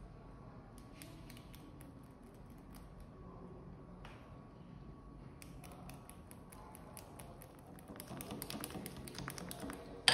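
Wire whisk beating milk powder into condensed milk and cream in a glass bowl: light, quick clicks and taps of the whisk against the glass. They grow busier and louder over the last two seconds as the mixture turns to a thick batter, and end on one sharp knock.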